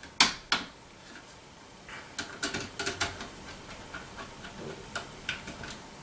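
Small clicks and ticks of hand work on an electrical outlet: a wire hooked onto a terminal screw and a screwdriver tightening it. Two sharper clicks come near the start, then a run of light irregular ticks.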